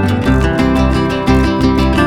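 Background music led by a plucked, strummed acoustic guitar with a steady beat.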